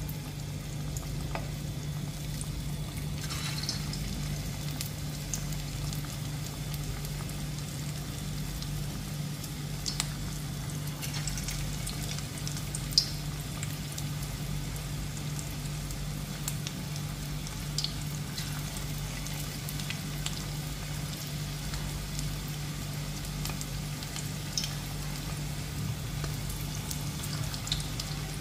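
Mutton goli kababs deep-frying in oil in a kadai: a steady sizzling hiss with scattered pops and crackles, over a low steady hum.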